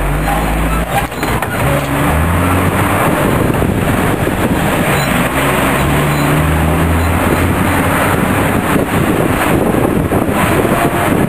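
Engine and road noise of a moving vehicle. The engine's pitch steps up and down over the first several seconds, then a steady rush of road and wind noise dominates.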